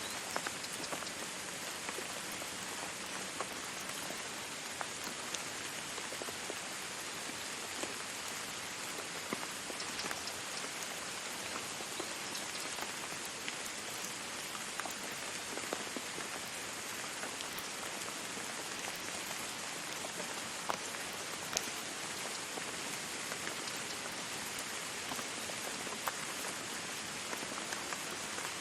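Steady sizzling hiss with irregular small crackles and pops, as of oil frying in a cooking pot.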